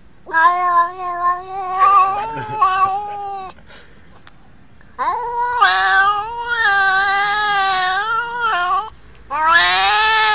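A domestic cat yowling in three long, wavering calls with short pauses between them.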